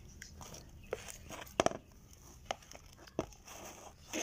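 Plastic spatula stirring thick cake batter in a metal bowl: soft wet scraping with a few irregular knocks of the spatula against the bowl, the loudest a double knock about one and a half seconds in.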